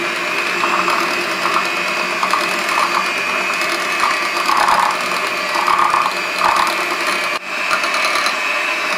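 Electric hand mixer running, its twin beaters whipping buttercream in a glass bowl: a steady whine with a rattle that comes and goes, and a brief dip about seven seconds in. It is the last beating after milk is added, to work out the grainy feel of the sugar.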